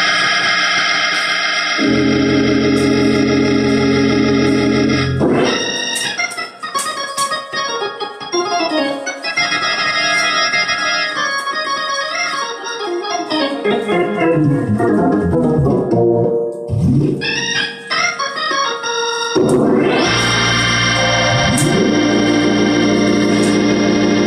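Two-manual drawbar organ played by hand: full held chords, with bass notes joining about two seconds in, then some fourteen seconds of fast runs sweeping down the keyboard, then held chords again near the end.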